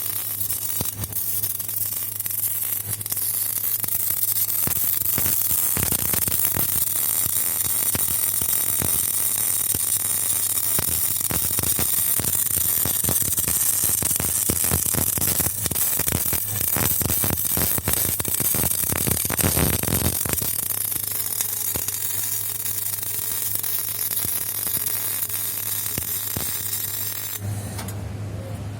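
MIG welding arc sizzling and crackling steadily, stopping suddenly near the end, over a steady electrical hum.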